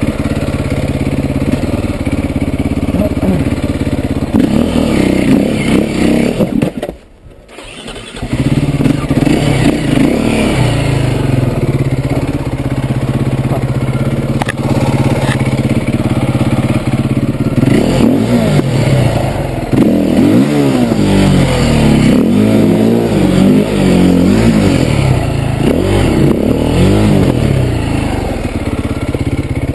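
KTM enduro dirt bike engine running; the sound cuts out for about a second around seven seconds in and the engine picks up again. In the second half it is revved up and down over and over as the bike is worked over rough, rocky ground.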